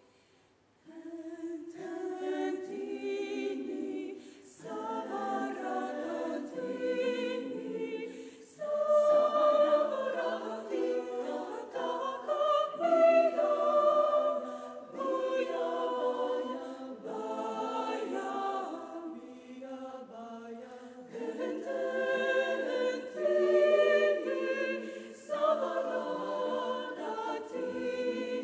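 Women's chamber choir singing a cappella in several phrases with short breaths between them, the first entry coming after a brief silence.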